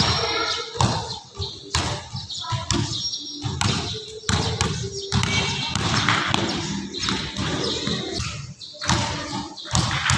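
Basketball dribbled on a wooden gym floor in a large indoor hall, with irregular bounces at an uneven pace.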